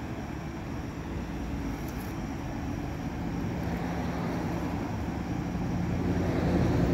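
A vehicle engine running steadily, a low rumble and hum that gets a little louder over the last couple of seconds.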